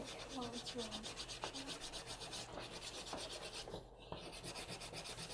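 Chalk pastels rubbed and blended across paper in quick, even back-and-forth strokes, a dry scratchy rubbing.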